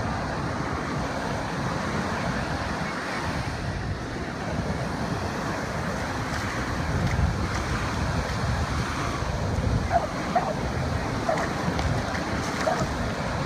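Ocean surf breaking and washing up the beach, a steady rushing noise, with wind buffeting the microphone in low gusts.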